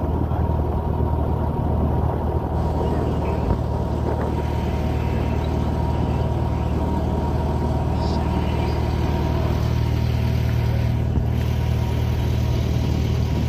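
Motorboat engine running steadily, a constant low drone.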